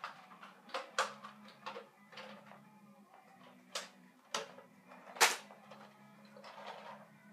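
Sharp plastic clicks and knocks of a Nerf dart blaster being handled and primed, about half a dozen, the sharpest about five seconds in. Under them runs a faint steady low drone.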